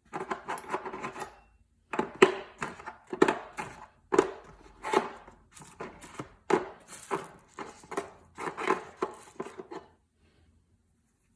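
A rapid run of hard knocks and clicks, like hard tools and parts being handled and set down, with a short pause under two seconds in, stopping near the end.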